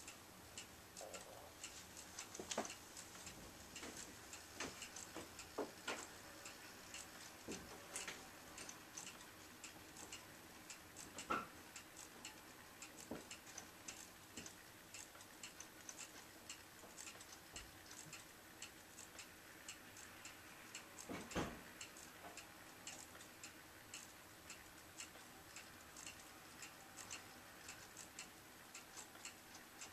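Wall clock's quartz stepping movement, driven by an ATtiny85 microcontroller, ticking faintly at random, uneven intervals, sometimes in quick runs and sometimes with gaps, while keeping accurate time overall. A few clicks stand out louder than the rest.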